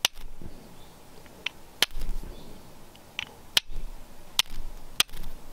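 Steel fire striker struck against a flint held with char cloth: about seven sharp clicking strikes at uneven intervals, each scraping sparks off the steel. The flint is being struck on a poor corner that sends the sparks the wrong way.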